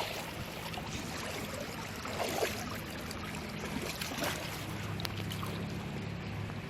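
Steady rushing of flowing river water, with a low hum joining in about five seconds in.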